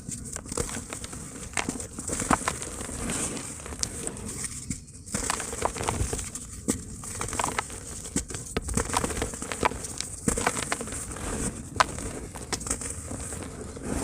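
Dry, hardened cement crumbling in a tub: irregular crackling and crunching made of many small clicks, with sharper snaps every second or so.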